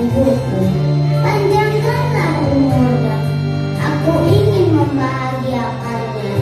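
Children singing a song together over a backing music track, the melody rising and falling above long held bass notes.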